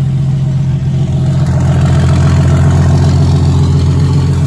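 Turbocharged Jeep Wrangler 4.0-litre inline-six idling steadily.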